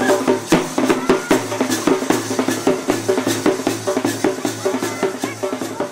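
Folk drumming: a large shoulder-slung drum and a smaller drum beaten with sticks in a fast, steady rhythm.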